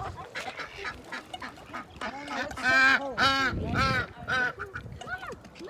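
Waterfowl calling close by: a quick series of short honking calls, loudest and most frequent in the middle.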